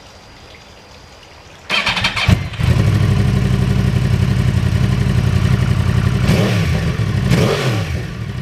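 2009 Yamaha R1's inline-four engine being started: the starter cranks briefly about two seconds in, the engine catches and settles into a steady idle, with two short blips of the revs near the end.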